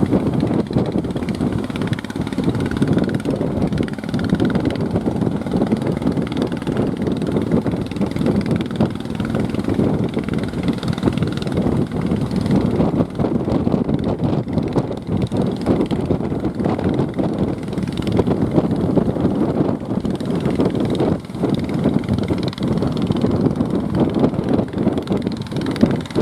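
Fishing boat engine running steadily, a continuous drone that holds its level with no clear changes.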